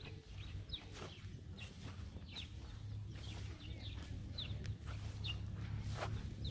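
Birds chirping: short, high calls repeating roughly every half second to second, over a steady low rumble.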